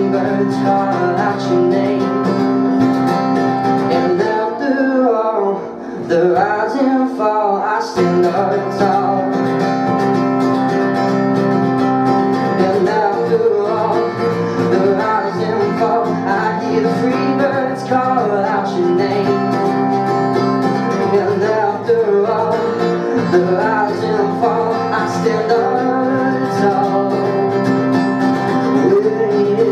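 A man singing a folk song live, accompanied by his own strummed acoustic guitar, with a brief lull about six seconds in.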